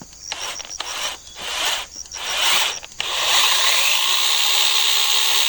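Rubbing and knocking handling sounds, then about three seconds in a battery-powered electric chainsaw starts and runs steadily with no load, a high whirr of the moving chain over a motor tone that rises and then holds. Crickets chirp faintly underneath.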